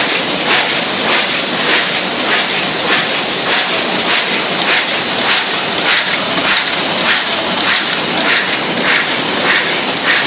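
Brauss automatic die-cutting machine running, with a regular stroke nearly twice a second over a steady rushing noise, as it feeds and cuts sheets.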